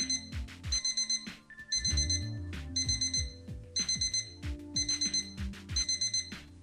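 Quiz countdown-timer sound effect: a short, high, ringing tick about once a second, over background music with a low pulsing beat.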